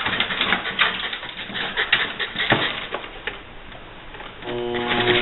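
Small dogs' claws pattering and clicking quickly on a tiled floor and treadmill deck as they move about. A steady hum made of several even pitches starts near the end.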